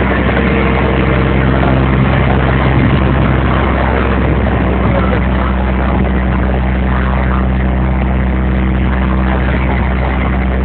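A heavy engine running steadily at an even, low speed, its hum holding one pitch without revving.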